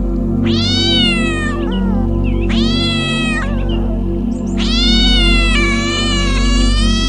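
Cat meowing three times in high-pitched, drawn-out meows, the third the longest and still going at the end, over soft background music.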